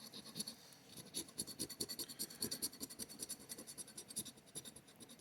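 Coin or scraper scratching the latex coating off a lottery scratch-off ticket in quick, repeated strokes, with a short pause about a second in.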